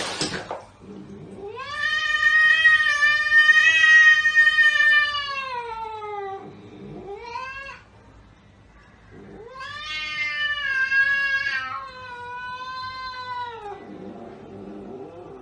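Cat yowling: two long, drawn-out wails of several seconds each, the first starting about a second and a half in and the second about nine seconds in, each sagging in pitch at its end. A short rising cry comes between them, and lower, weaker cries follow near the end.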